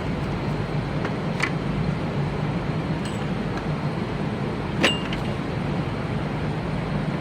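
Steady hum of running machinery, with a few light metallic clicks and clinks, the sharpest about five seconds in.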